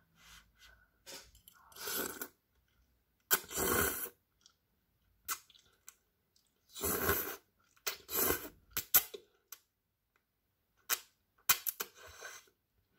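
Fried instant noodles slurped off a fork and chewed: four noisy slurps of about half a second each, with short sharp clicks and quiet chewing between them.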